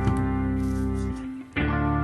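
Background music with held guitar chords; the sound drops briefly about one and a half seconds in before the next chord comes in.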